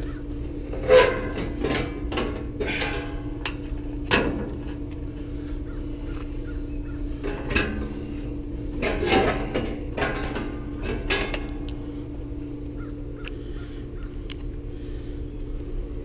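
Crows cawing, a series of short harsh calls spread over the first dozen seconds, with a couple of sharp knocks as the condenser's sheet-metal fan top is set in place, over a steady low hum.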